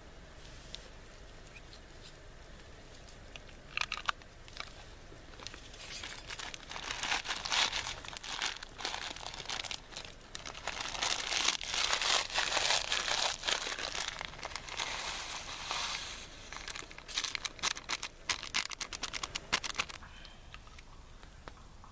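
Plastic food packaging crinkling and being torn, in irregular handling bursts that start a few seconds in and stop near the end.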